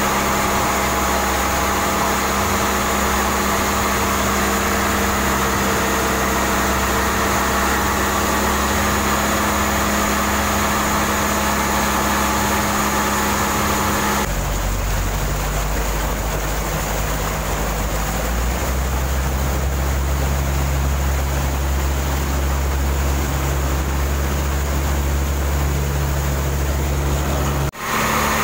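Mitsubishi PS 100 four-cylinder diesel inboard engine running steadily in a wooden boat's engine compartment. Its note changes about halfway through.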